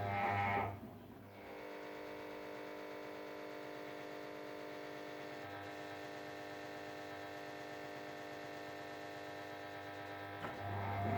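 Ariston Margherita washing machine in its main wash: the drum motor's drone cuts out about a second in, leaving a steady electrical hum during the pause between tumbles, and the motor drone starts again near the end.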